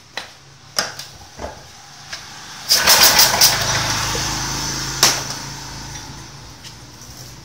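Small single-cylinder stationary engine of the GX160 type, fitted with a CDI ignition, being pull-started: a few sharp clicks from the recoil rope, then about three seconds in it catches with a loud burst and runs, its sound fading over the following seconds. It is hard-starting while its ignition timing is being reset by shifting the flywheel magnet.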